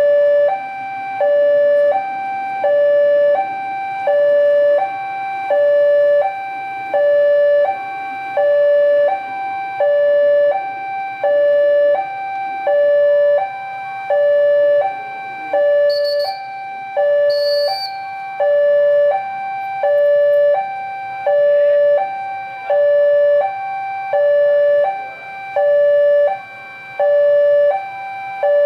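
Railway level-crossing warning alarm sounding its electronic two-tone signal, a lower and a higher note alternating evenly about every three quarters of a second, the warning that a train is approaching.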